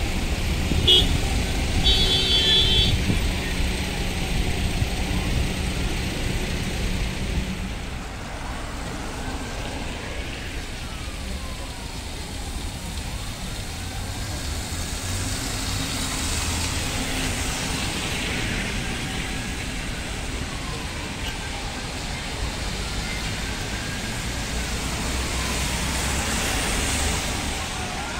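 City street traffic on a wet road: vehicles running past with tyre hiss and a low engine rumble, and a car horn tooting twice in the first few seconds. Later, trolleybus electric traction drives whine, rising and falling in pitch again and again as the trolleybuses pull away and slow.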